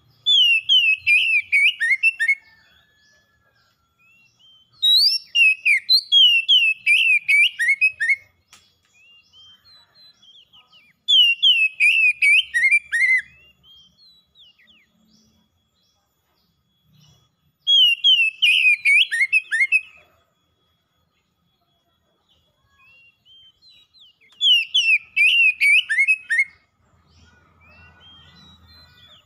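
Oriental magpie-robin singing: five bursts of loud whistled song about every six seconds, each two to three seconds of quick notes sliding downward.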